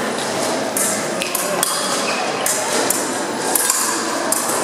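Épée blades striking and clinking against each other in several sharp, irregular metallic contacts over steady background noise.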